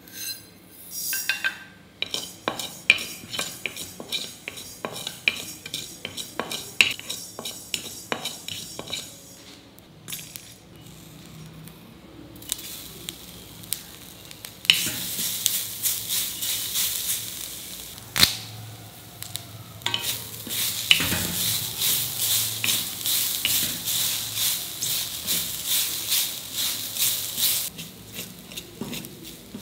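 A spatula stirs ingredients dry-roasting in a steel kadai. First comes a run of quick clicks from mustard and fenugreek seeds. Then grated fresh coconut, coriander and green chillies give a steady sizzling hiss, with scraping strokes and the odd knock against the pan.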